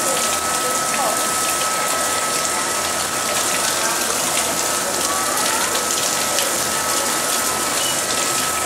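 Water gushing and splashing steadily into a pool, with a steady high-pitched tone running under it.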